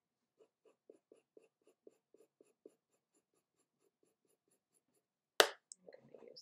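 Pencil scratching on drawing paper in quick short strokes, about four or five a second, laying cross-contour shading lines. About five seconds in, one sharp tap, the loudest sound.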